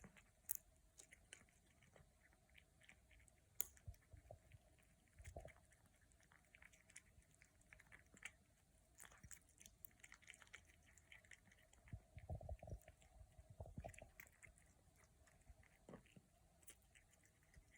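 A kitten chewing green peas: faint, irregular small clicks and crunches of eating, with a few soft low thumps about five seconds in and again around twelve to fourteen seconds.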